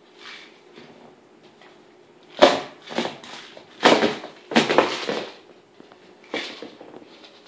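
Kong Wobbler, a hard plastic treat dispenser, being nosed and tipped by a puppy, knocking on the floor and against the wooden cabinet doors with kibble rattling inside. A series of knocks and clatters, loudest between about two and five seconds in.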